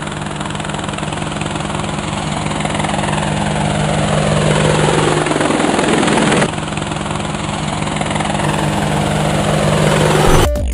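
Quadcopter drone's propellers buzzing in a steady hum that slowly grows louder, with a whoosh sweeping down and past about five to six seconds in that ends abruptly.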